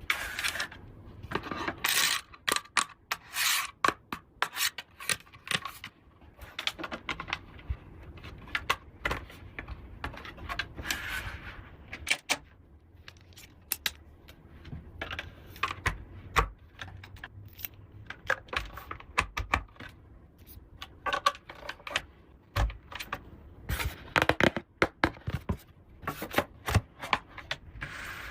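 Small plastic toy pieces being handled: irregular clicks, taps and light clatter, with short stretches of rubbing and scraping in between.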